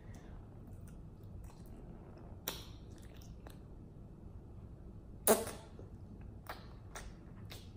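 Wet mouth sounds of someone eating mochi ice cream: a few soft lip smacks and clicks as she sucks on the chilled rice-dough ball, the loudest about five seconds in, over faint room tone.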